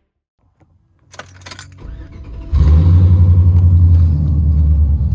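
Keys jangle about a second in, then a Chevy Silverado pickup's engine starts abruptly about two and a half seconds in and runs steadily.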